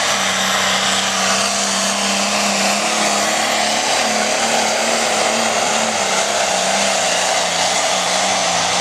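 Pulling vehicle's engine running at full throttle under load during a sled pull, a loud, steady drone whose pitch wavers slightly midway.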